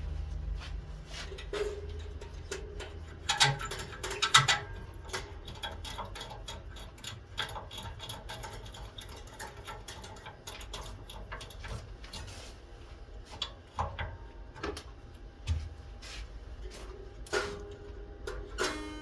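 Scattered light clicks and taps of hand work in an instrument workshop, with louder clattering knocks about three and a half and four and a half seconds in, over a low steady hum.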